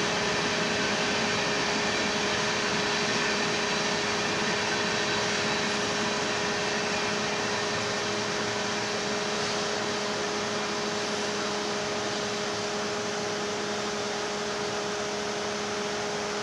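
Union Pacific manifest freight train's cars rolling past: a steady rush of steel wheels on rail with a steady hum running through it.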